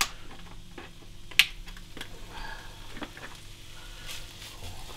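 Diced bacon being handled from a plastic packet into a frying pan: a few scattered light clicks and rustles of the packaging and pieces, the sharpest about a second and a half in.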